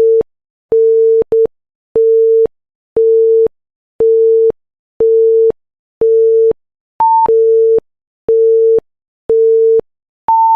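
Countdown timer beeps: a steady series of short mid-pitched electronic beeps about once a second, then a long higher-pitched beep near the end as the time runs out.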